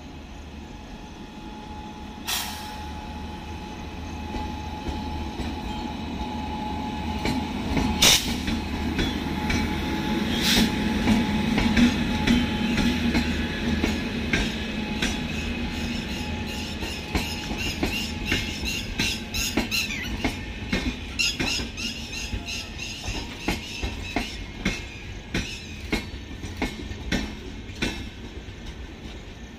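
Electric passenger train passing close by: a rumble that builds as the locomotive nears, with a few sharp clacks around two, eight and ten seconds in, then a fast, evenly repeating clatter of the LHB coaches' wheels over rail joints.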